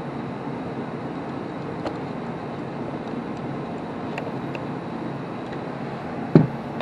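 Steady background hum with one sharp click about six seconds in, as a part of an iRobot Roomba 675's brush assembly is snapped back into place.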